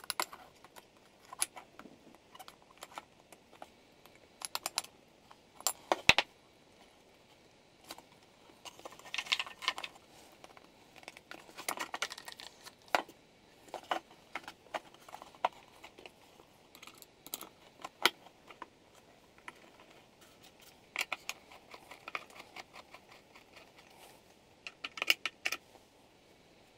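Small hand tools being handled on an aluminum heat-sink plate and hookup wire: scattered irregular clicks and taps with a few short scrapes, from pliers and wire cutters. One sharp click about six seconds in is the loudest.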